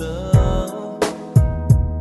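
Music with a drum beat and a bass line.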